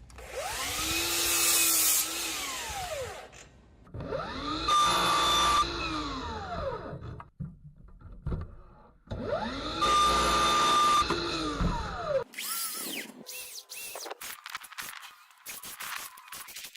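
DeWalt Flexvolt cordless mitre saw cutting 90 by 45 pine framing three times in a row: each time the motor whines up to speed, the blade goes through the timber, and the motor winds down, about three seconds per cut. Near the end come a few seconds of light clicks and knocks.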